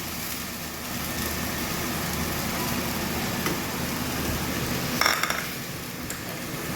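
Steady hiss of a pan cooking over a high gas flame, with a short clatter of a utensil against the pan about five seconds in.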